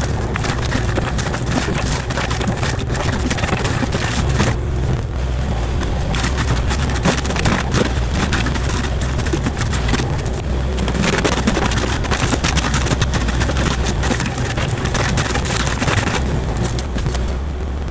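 Kubota KX040-4 mini excavator's diesel engine running steadily at working speed, with its hydraulic forestry mulcher head spinning and grinding through brush and briars. The shredding noise eases off briefly a few times and then picks up again.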